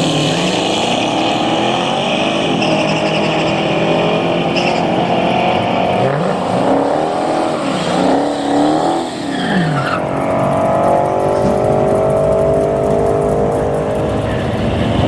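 Dodge Challenger SRT Hellcat's supercharged V8 revving through a burnout, with tires squealing. The engine note rises and falls again and again, then holds steady for the last few seconds.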